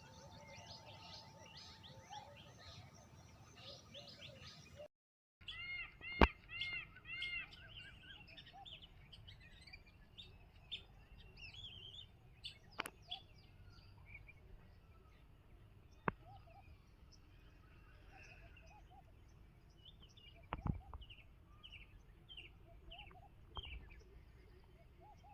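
Birdsong: several wild birds chirping and calling, with a run of quick, arched, repeated whistled notes about six seconds in. A few sharp clicks stand out, the loudest about six seconds in, and the sound drops out briefly just before it.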